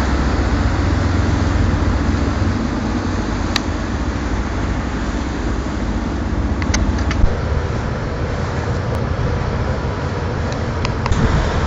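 Tugboat's diesel engine running as a steady low rumble heard from on deck, mixed with wind and water noise; the rumble eases a little about seven seconds in.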